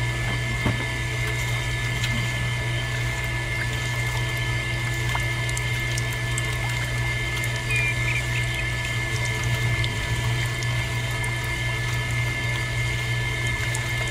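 Small electric motor whirring steadily as it belt-drives the rollers of a miniature sugarcane juice press crushing a cane stalk, with a few faint ticks.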